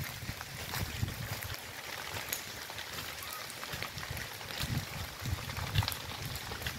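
Wildfire burning through dry grass and brush: a steady crackle of many small pops over a hiss. A few low thumps come through, the loudest near the end.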